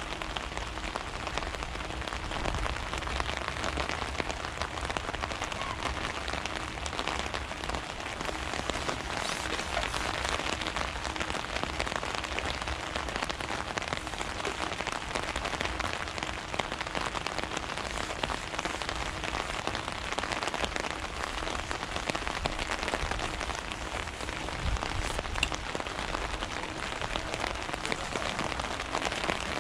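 Steady rain falling, an even, dense patter of drops that holds throughout.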